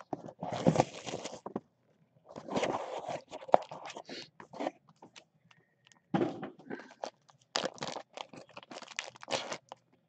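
Hands crinkling plastic wrapping and scraping cardboard boxes: irregular bursts of rustle and crackle with sharp clicks, in four or five clumps with short pauses between.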